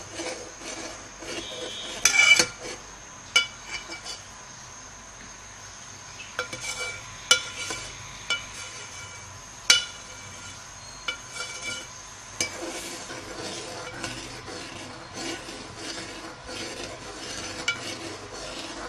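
A metal spoon stirring thickening milk in a metal pot, scraping round the sides and bottom with repeated sharp, ringing clinks against the metal, the loudest a couple of seconds in. The stirring keeps the boiling milk from sticking to the pot as it reduces to khoya.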